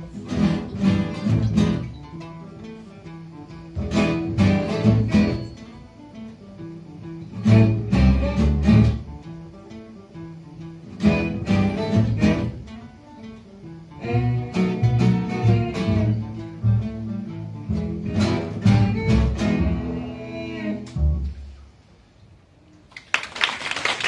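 Small live string ensemble of acoustic guitars, violin and double bass playing, loud strummed chord passages alternating with quieter picked ones. The music ends about 21 seconds in, and after a short pause applause breaks out near the end.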